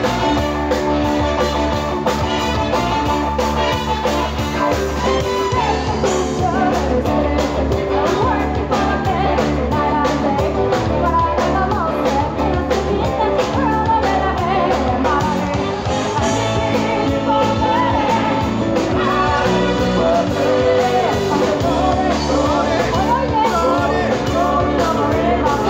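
Live band playing an upbeat rock-and-roll number with a horn section of trumpet and saxophones, electric guitar and drums, and a woman singing lead.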